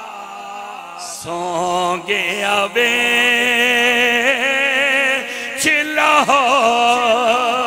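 A man's voice chanting a devotional refrain into a microphone, drawing out long, wavering notes with heavy vibrato. Short breaks fall between the phrases.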